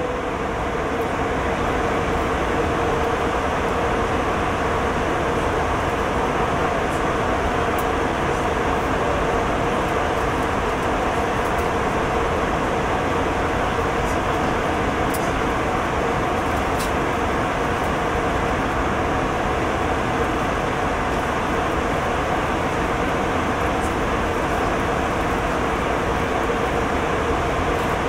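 Steady cabin noise of an airliner in cruise flight: an even rush of engine and airflow noise with a faint steady hum underneath.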